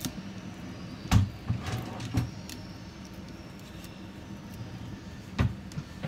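Small repair tools clicking and tapping against an opened smartphone's frame and internal parts as it is taken apart: a sharp click about a second in, a few softer ones soon after, and another near the end, over a steady low hum.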